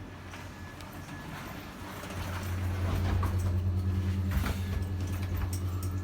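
A steady low motor or engine hum that comes in about two seconds in and then holds, with a few faint clicks.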